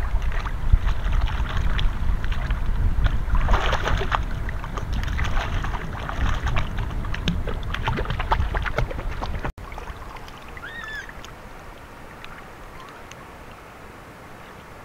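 River water splashing and sloshing as a puppy is held and scrubbed by hand in the shallows, dense and irregular, with a low rumble under it. About two-thirds of the way through it cuts off abruptly to a much quieter outdoor background.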